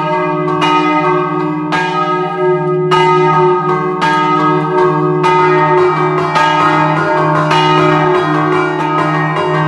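Stationary bronze church bells of a three-bell De Poli peal in E-flat, cast in 1947, struck by hand with ropes pulled on their clappers in a Friulian scampanottata. The strikes come about once a second at first, then quicken into a denser rhythmic pattern from about five seconds in, each note ringing on under the next.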